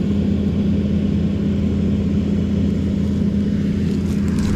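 Large tractor's diesel engine idling steadily, a constant low hum. Near the end there is a brief crackle of dry stalks being handled.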